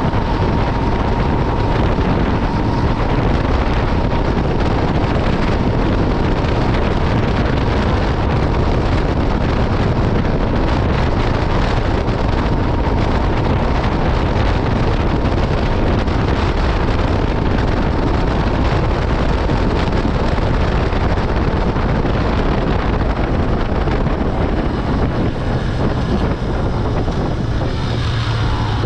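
Yamaha Byson FZ16's single-cylinder four-stroke engine running steadily through its stock exhaust, heavily mixed with wind noise on the microphone.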